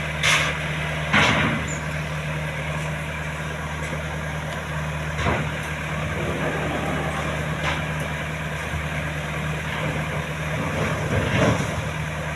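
Combine harvester's diesel engine running steadily, with a few short louder bursts of noise over it.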